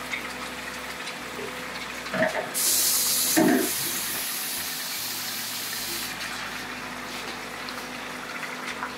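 Raw chicken pieces sizzling in hot oil with browned onions in a frying pan, the sizzle growing louder and brighter for a few seconds from about two and a half seconds in. Two short louder sounds come before and at the start of that stretch.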